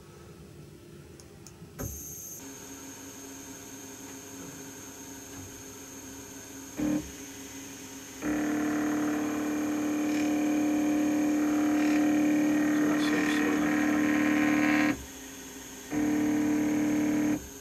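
OpenBuilds OX CNC router's Z-axis stepper motor being jogged back and forth on its 8 mm leadscrew during an axis test. A faint steady hum and high whine set in about two seconds in as the steppers are enabled, then a brief move near seven seconds, a long steady, even-pitched motor drone from about eight to fifteen seconds, and another short run near the end; the even tone is the sound of smooth running without missteps.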